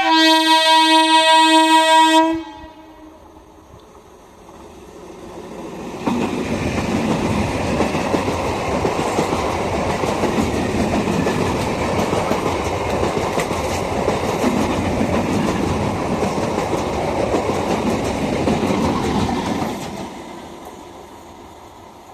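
An Indian Railways train's horn gives one loud blast of about two seconds, then the train comes up and runs past at speed, its wheels and coaches rattling loudly over the rails for about fourteen seconds before the sound fades away.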